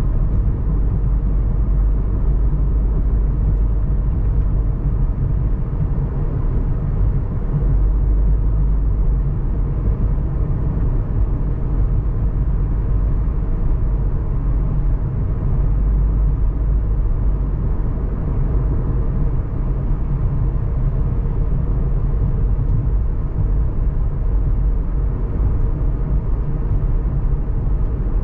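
Steady low rumble of a car driving: engine and tyre noise at an even level, with no sudden sounds.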